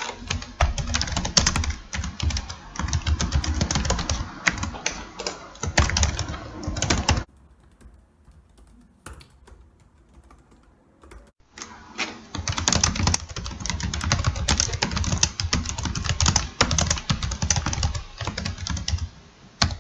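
Dense, fast, irregular clicking in two long runs, with a gap of about four seconds in the middle where only a few faint clicks remain.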